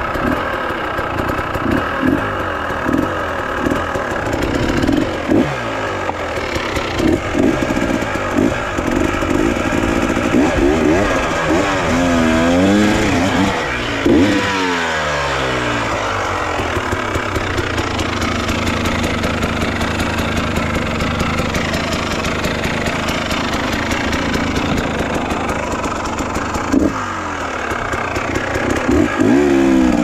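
Enduro dirt bike engine running under load on a rocky trail climb, revved up and down repeatedly with rising and falling pitch. It settles to a steadier run in the middle, then is revved again near the end.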